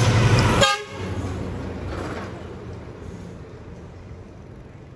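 A vehicle horn honking briefly over a loud engine; both cut off sharply under a second in. Quieter street traffic then fades away.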